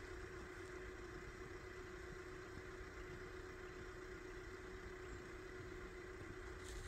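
An engine idling steadily off-camera: a low, even hum with one constant tone.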